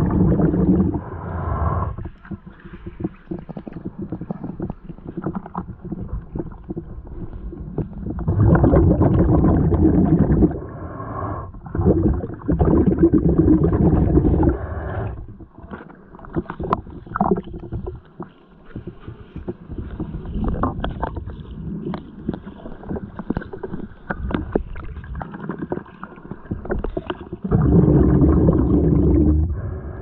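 Muffled underwater rush of a waterfall pool heard through a submerged microphone. Several louder surges of two to three seconds each come at the start, around 8 to 15 seconds in, and near the end, with scattered small clicks between them.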